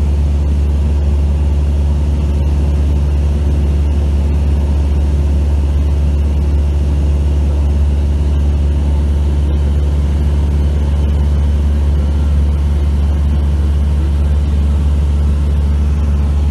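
Small propeller aircraft heard from inside the cabin in flight: a steady, loud, low drone of engine and propeller, with a faint hiss of air above it.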